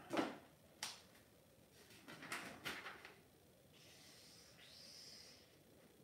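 Pen scratching on a paper notepad as a quick sketch is drawn. A few light handling clicks come first, then the faint, scratchy stroke of the pen about four to five and a half seconds in.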